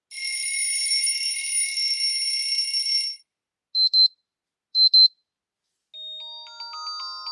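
Xiaomi 14 smartphone ringtones played one after another: a steady, high buzzing alarm tone for about three seconds, then two short double beeps about a second apart, then a chiming melody beginning near the end.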